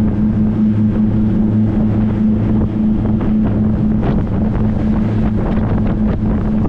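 Jet boat's engine running at a steady pitch while underway, with wind buffeting the microphone.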